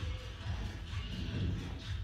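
Background music, its bass the loudest part.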